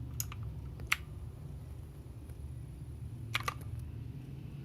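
A few separate key clicks on a Machenike K7 keyboard, as the Fn and 1 keys are pressed to switch it back to its first paired device: one click near the start, one about a second in, and a quick pair a little past three seconds, over a low steady hum.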